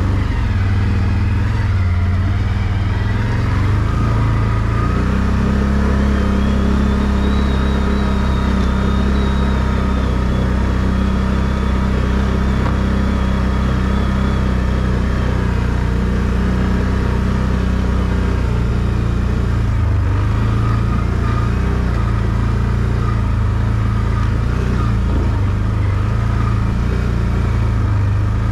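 ATV engine running steadily as the quad is ridden along a rough forest track. Its pitch rises a little about five seconds in, and a faint high whine rises and falls through the middle.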